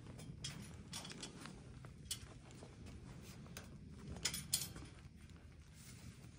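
Rustling and handling noise with scattered light clicks and knocks, the sharpest two close together about four seconds in, over a low steady rumble.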